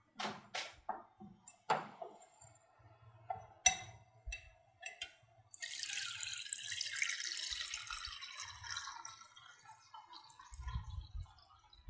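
A few short clinks and knocks of a metal pot and mesh sieve against a bowl, then a steady splashing hiss as a milk-and-yogurt mixture is poured from the pot through a fine stainless-steel mesh sieve into the bowl, fading to a quieter trickle near the end.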